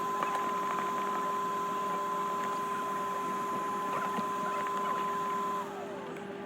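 A small electric motor whining at a steady pitch, then winding down and stopping near the end, over a steady lower hum, with faint scattered clicks.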